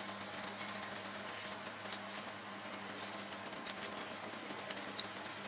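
A vegetable samosa deep-frying in hot oil in a cast-iron kadai: a steady sizzle with scattered small crackles and pops.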